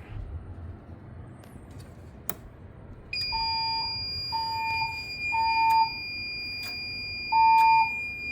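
Fire alarm notification appliances sounding: about three seconds in, a steady high-pitched tone comes on, joined by a lower tone pulsing in the temporal-three evacuation pattern (three short beeps, a pause, then three more), the standard signal to evacuate.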